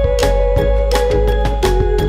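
Background music: a sustained melody over a steady beat of about two strikes a second and a heavy bass.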